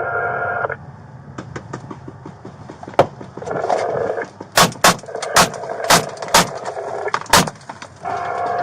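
A run of sharp, loud bangs, about half a second apart, between two brief police radio transmissions, one cutting off just after the start and another starting near the end.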